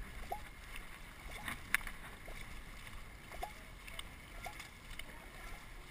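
Dragon boat crew paddling: faint splashing of paddle strokes and water rushing along the hull, with a sharp click a little under two seconds in.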